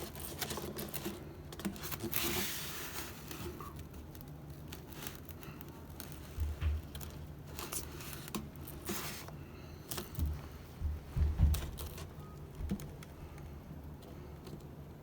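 Workbench handling noises: scattered taps, knocks and rustling as parts of a foam model airplane are moved and worked on, over a low steady hum.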